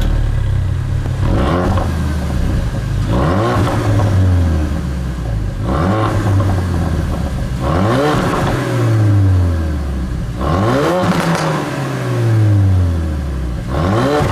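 Ford Focus RS Mk III 2.3-litre turbocharged four-cylinder, on its stock exhaust in normal mode with the Mountune FPM375 tune, blipped about six times while parked; each rev rises and falls back to idle. The exhaust is raspy, with some pops and crackles right at the top of the revs, which the FPM375 package brings in.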